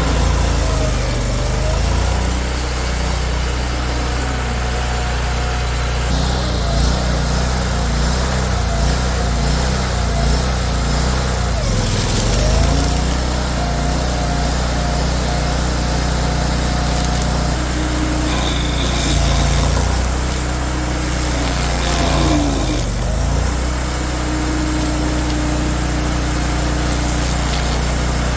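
Tracked stump grinder's engine running steadily at high revs, its pitch dipping briefly twice as it takes load while grinding a stump.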